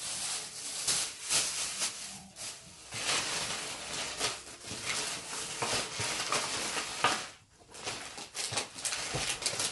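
Rustling and crinkling of bags and packaging as purchases are rummaged through, with a short lull about seven seconds in.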